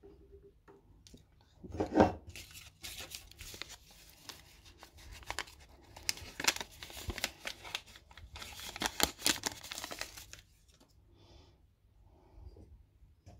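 A paper sachet of baking powder torn open, then crinkled and rustled as it is shaken out over the bowl for several seconds. There is one sharp knock about two seconds in.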